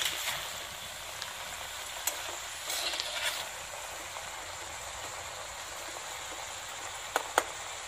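Shredded cabbage, carrots and peas sizzling in a frying pan with a steady hiss, stirred with a spatula that scrapes across the pan a few times. Two sharp clicks near the end.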